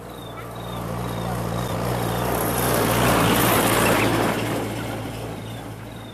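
A motor vehicle passing by: its engine and tyre noise swells, peaks about halfway through, then fades away. Faint short chirps repeat about twice a second.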